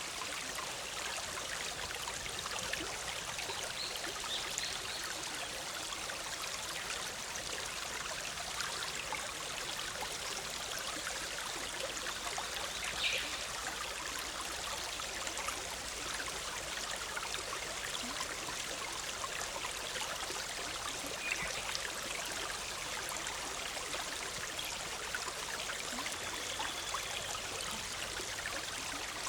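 A shallow forest stream bubbling and trickling steadily over rocks, with a few brief bird chirps.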